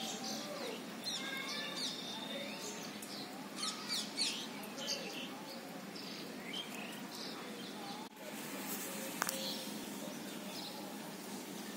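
Small birds chirping, many short quick calls that are busiest in the first few seconds, over a steady background hiss. A single sharp click comes about nine seconds in.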